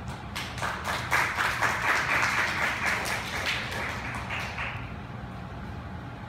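Audience applause, a dense patter of clapping that swells quickly and dies away about five seconds in, over a steady low hum.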